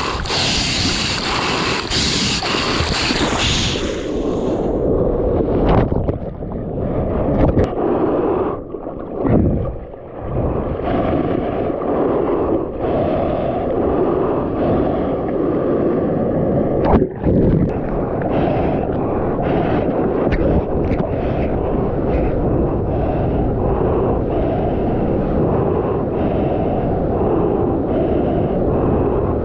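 Seawater rushing and splashing against a surfboard-nose camera as the board moves through the ocean. It is hissy and bright for the first few seconds, then muffled for the rest, with a single sharp knock about seventeen seconds in.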